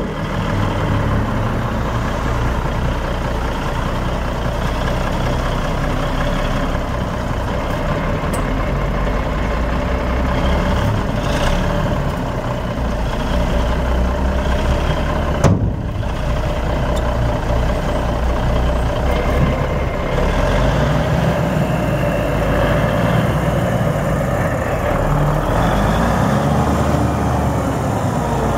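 Six-cylinder turbo diesel engine of a 1982 Western Star 4964-2 dump truck running steadily at idle, with one sharp knock about halfway through. In the second half the engine note rises and wavers as the dump bed is raised.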